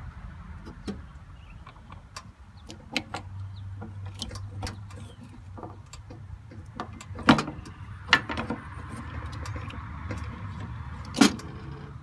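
Hand tools clinking and clanking on metal as a wrench works the mounting bolts of a tractor's air-conditioning compressor: scattered sharp clicks, with three louder clanks in the second half, over a steady low hum.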